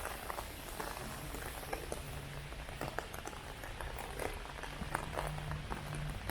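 Heavy rain falling, with many close drops splashing and pattering in quick, irregular ticks over a steady wash of rain, and a low hum in the background.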